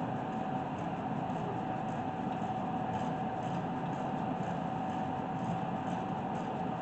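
Steady mechanical background hum with a constant mid-pitched whine running unchanged throughout, and no distinct knocks or impacts.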